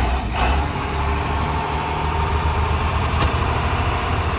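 Diesel engine of a medium-duty service truck running at a steady idle, a loud, even low rumble, with a single brief click about three seconds in.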